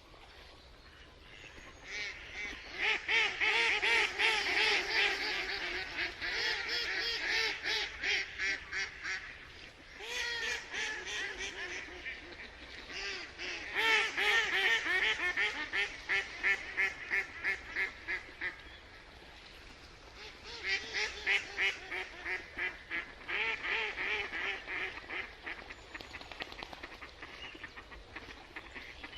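Ducks quacking in fast, rapid-fire runs, coming in four bouts separated by short pauses.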